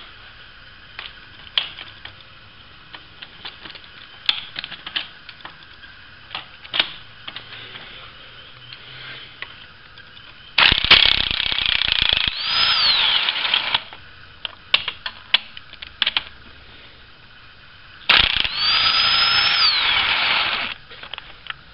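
Light clicks and knocks of tools on metal, then a cordless impact wrench runs twice for about three seconds each, undoing engine mounting bolts. On each run its whine rises and then drops.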